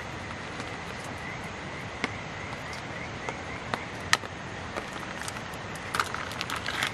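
Plastic pudding cup being handled and turned over a steel camp cup, giving a few sharp clicks about two and four seconds in and a flurry of small clicks and crinkles near the end, over a steady background hiss.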